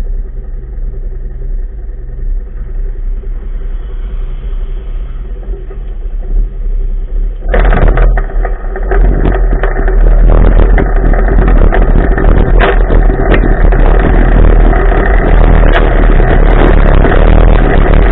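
Polaris RZR side-by-side engine running low and steady, then about seven and a half seconds in the throttle opens suddenly and it accelerates hard, staying loud at high revs as the machine drives off across the dirt.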